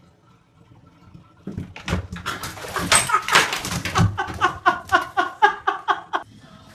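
A kitten's claws scrabbling and squeaking against the smooth side of a bathtub as it tries to climb out, ending in a quick run of short pitched squeaks, about five a second.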